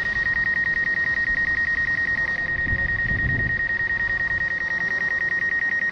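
A drone remote controller's warning alarm: a loud, high-pitched beep pulsing very rapidly and evenly without a break.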